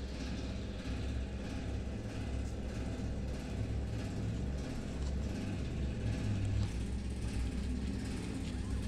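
Steady low rumble with a faint hiss over it.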